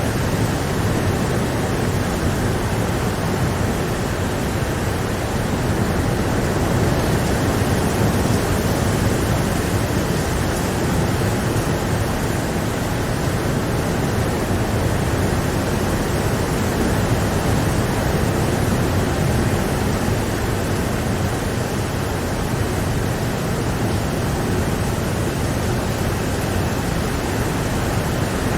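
Steady rain, an even hiss with no single drops or thunder standing out.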